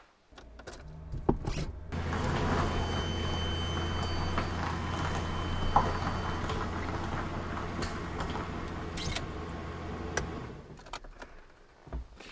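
Old 120-volt, 40-amp DC charger humming under load while charging an electric car: a steady electrical hum with a deep drone and a faint high whine, starting about two seconds in and dying away about ten seconds in. A few light knocks near the end.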